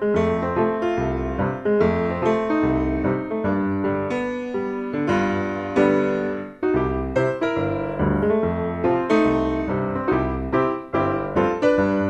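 Background piano music: a melody of regularly struck notes over a low bass.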